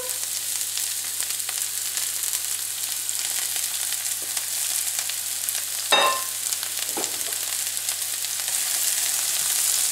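Chopped onion frying in hot olive oil in a nonstick pan: a steady sizzle. A short clink about six seconds in.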